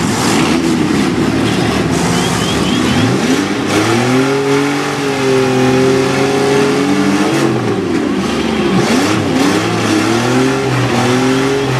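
Demolition derby small cars' engines revving hard, the pitch climbing, held high for a few seconds in the middle, then dropping, and climbing and falling again near the end. There are a few knocks as the cars ram each other.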